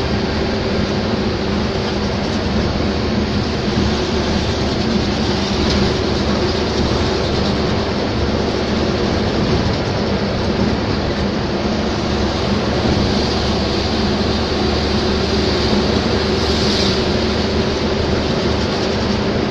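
Steady engine drone and road noise heard from inside a vehicle cruising on a highway, with a constant low hum.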